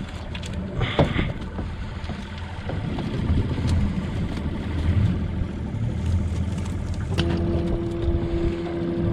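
Boat motor running steadily with a low rumble, while the wire-frame catfish net clatters against the boat's side in the first second or so. About seven seconds in, a steady motor hum joins it.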